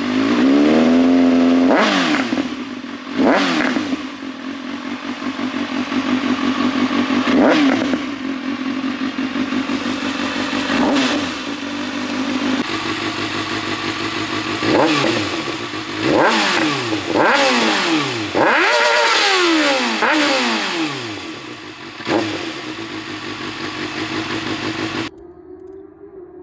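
Kawasaki ZX-6R sportbike's inline-four engine idling with repeated quick throttle blips, each rev rising sharply and falling back to idle, with the longest, highest rev a little past the middle. The exhaust note changes slightly at a cut about halfway through, and the engine sound stops shortly before the end.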